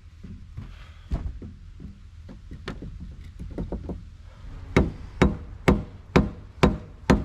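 Scattered light knocks, then six loud, even hammer blows about two a second near the end, as a piece is driven into place.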